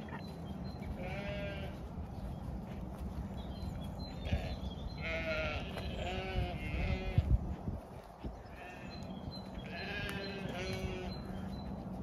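Zwartbles ewes bleating, a string of separate calls: one, then a close run of several, then two more near the end, over a low steady rumble.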